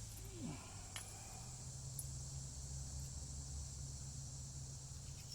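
Insects, crickets by the sound, chirring steadily in the background, with a faint click about a second in.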